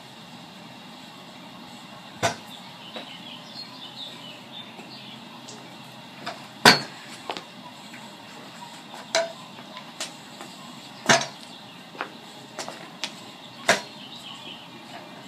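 Stunt scooter knocking and clanking on a hard porch floor as it is handled and set down: a string of separate sharp knocks, the loudest about seven seconds in, then several more in quicker succession toward the end.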